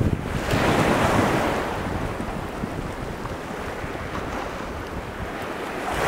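Pacific surf washing against sea cliffs, one wave surging about half a second in and slowly ebbing, with wind buffeting the microphone.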